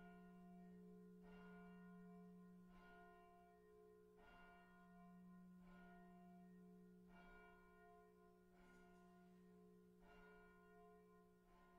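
Church bell tolling slowly and faintly, one stroke about every second and a half, each stroke ringing on into the next.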